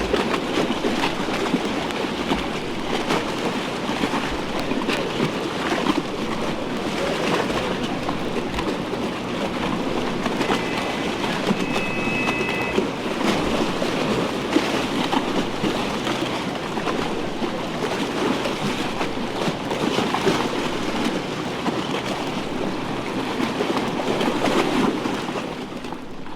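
A steady, dense rumbling rattle full of small clicks, with a faint two-note whistle for about two seconds near the middle.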